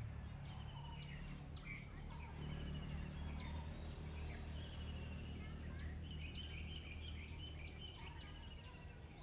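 Several birds chirping and trilling, short calls and fast repeated notes. Under them runs a steady low hum, and a constant faint high-pitched whine sits above.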